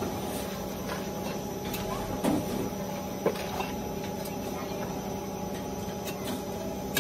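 A workshop machine running with a steady hum, with a few short scrapes and knocks of a metal shovel digging through ground plastic in a metal bin, the sharpest about two seconds and about three seconds in.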